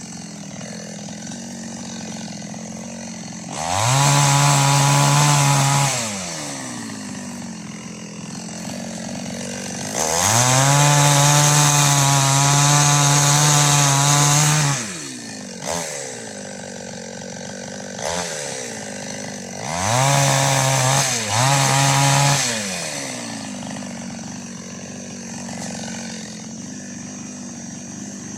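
Two-stroke chainsaw idling and being throttled up to full revs four times, the longest for about five seconds, then dropping back to idle each time.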